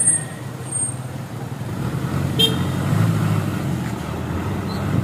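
Isuzu Elf light truck's 4HL1 four-cylinder diesel engine running as the truck pulls away into traffic, now pulling with its low-power wiring fault fixed. A single brief high beep, like a small vehicle horn, sounds about halfway through.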